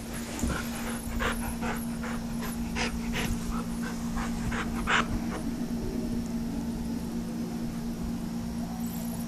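A black dog panting in a run of short, quick breaths that stops about five seconds in. A steady low hum lies underneath.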